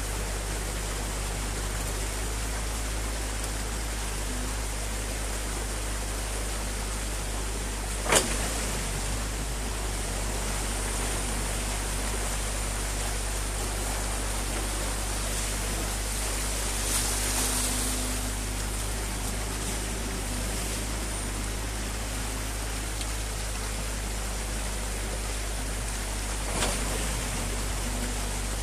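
Muddy stream water rushing steadily through a breached beaver dam, over the low, steady running of an excavator's engine. One sharp knock about eight seconds in.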